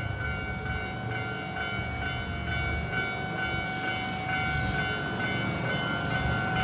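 Japanese level crossing warning bell ringing steadily, with its electronic clanging tone repeating, over the low rumble of a train passing the crossing.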